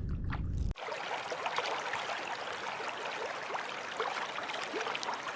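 Wind rumbling on the microphone, then after a sudden cut, water trickling and bubbling with many small pops and ticks.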